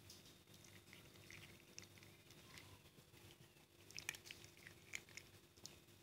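Cats crunching dry kibble: faint, irregular crunches and clicks, with a louder cluster about four to five seconds in.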